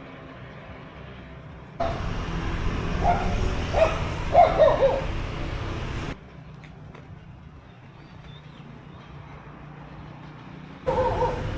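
A dog barking and yipping a few times over a steady low rumble. The sound starts and stops abruptly, with a quieter stretch between, and starts again near the end.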